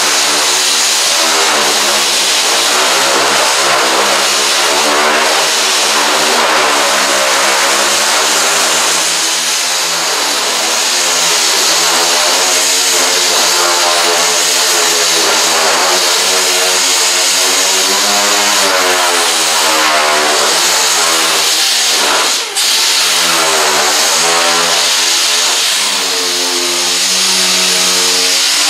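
Air-powered dual-action (DA) sander running steadily on primer. Its pitch drifts up and down as it is pressed and swept across the panel, knocking down the top layer of primer at full pressure and speed. It cuts out for an instant about three-quarters of the way through.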